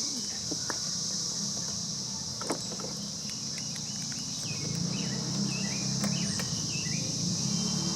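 Steady high chorus of insects such as crickets, with a low hum growing in the second half and a few faint clicks.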